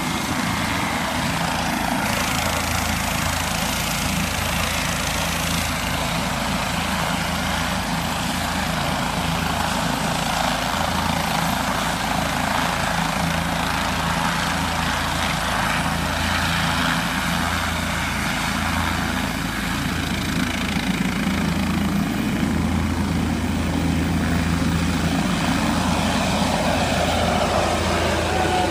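Light helicopter running with its rotor turning, a steady low rotor throb under the engine's whine. It gets slightly louder after about twenty seconds, and a falling tone comes in near the end as it lifts off.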